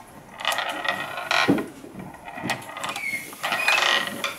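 Homemade pinball machine being played: its plastic flippers clack and a small ball rolls and knocks about the wooden tray, giving a run of irregular clicks and knocks, the strongest about one and a half seconds in.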